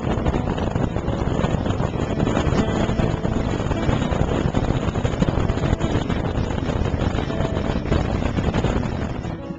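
Motorboat engine running steadily, with wind buffeting the microphone; it fades out near the end.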